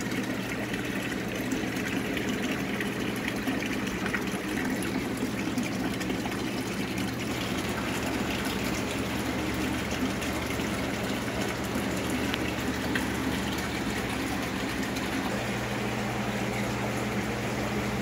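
Aquarium filtration running: a steady rush of water with a low steady hum underneath.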